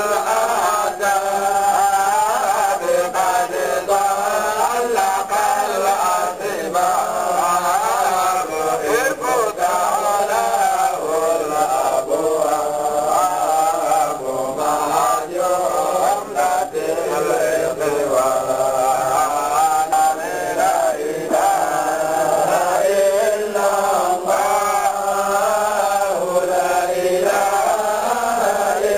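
Male chanting of an Islamic Sufi devotional chant (dhikr), a melodic line that rises and falls and carries on without a break.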